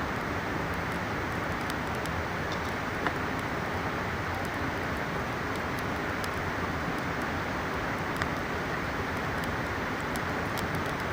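Steady rush of a mountain river, with sharp little crackles and pops of a burning campfire scattered through it; two pops stand out about three and eight seconds in.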